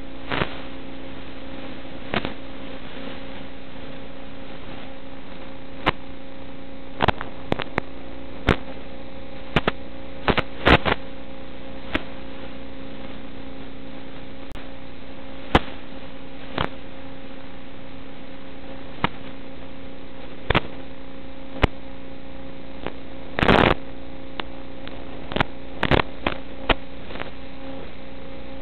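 Steady electrical hum and hiss on the audio of an analog FPV video link, broken by scattered sharp static clicks and a short burst of crackling about two-thirds of the way through.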